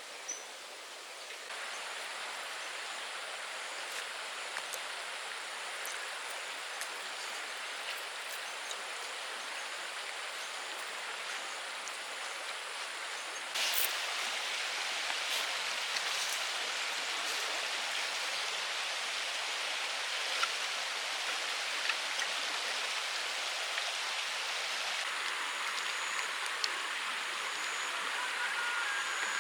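Steady rain falling, an even hiss with scattered drops ticking. It gets abruptly louder about a second and a half in and again about halfway through.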